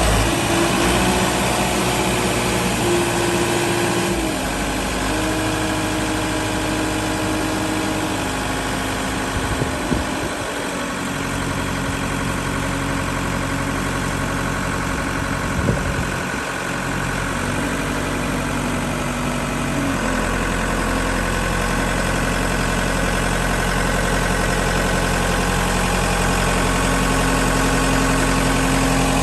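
Engine of a piece of construction equipment idling steadily, its speed shifting a few times, with a couple of short knocks about ten and sixteen seconds in.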